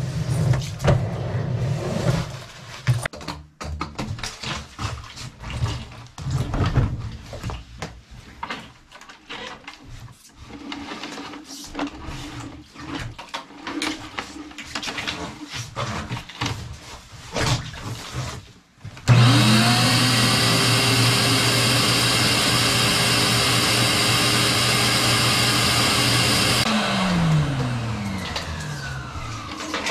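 Clattering and knocks of a flexible drain-cleaning cable being handled and fed into a drain. About nineteen seconds in, a wet/dry shop vacuum switches on suddenly and runs steadily and loudly for about seven seconds, then is switched off and winds down with falling pitch.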